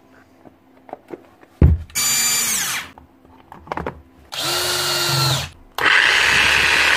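Hilti TE 905-AVR electric demolition hammer being test-run after repair of its speed pick-up ring and bearings. After a knock, its motor whines up and winds down in two short bursts, then runs on continuously from about six seconds in.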